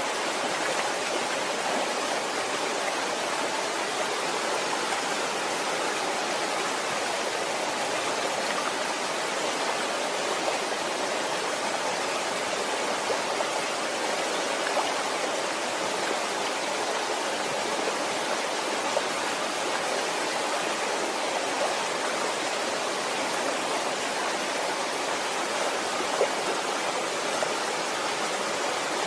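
Waterfall: water falling and rushing in a steady, unbroken hiss.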